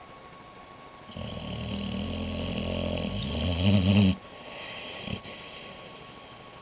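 Boxer dog snoring in its sleep. One long, rattling snore starts about a second in, grows louder for about three seconds and cuts off sharply, followed by a softer breathy sound.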